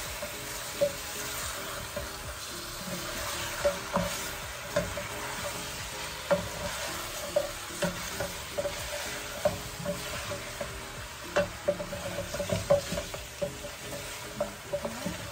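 A wooden spoon stirs chunks of boiled beef feet and tripe in a stainless steel pot over the heat. There is a steady sizzle from the pot and frequent short knocks and scrapes of the spoon against the pot, coming more thickly near the end.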